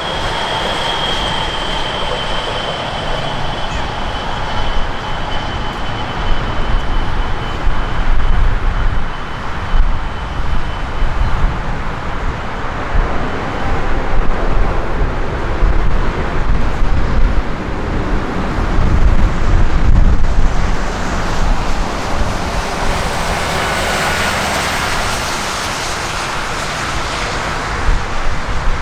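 Jet airliner engine noise: a loud, steady rush with an uneven low rumble. A high engine whine fades away over roughly the first twelve seconds, and a fainter falling whine comes in later.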